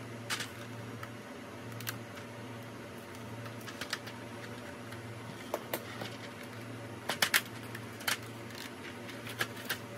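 Clear plastic keycap case being tilted and handled, with scattered light clicks and rattles from the case and the keycaps inside it; the loudest is a quick run of three clicks about seven seconds in. A faint low hum pulses about once a second underneath.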